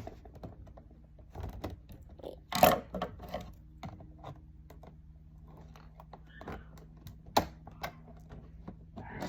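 Scissors snipping open slime packaging, with scattered clicks and crinkling of plastic being handled. There are sharper snaps about two and a half seconds in and again about seven seconds in.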